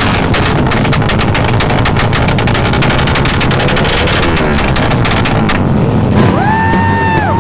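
Motorcycle engine revved hard through a loud open exhaust, a rapid crackling rattle that cuts off a little over five seconds in. Near the end a pitched horn-like tone rises, holds and drops.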